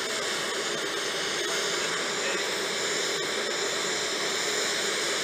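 An aircraft turbine running steadily: an even hiss with faint steady whine tones, and one light click about three seconds in.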